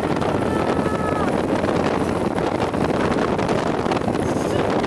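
Motorboat engine running steadily at speed, with wind buffeting the microphone.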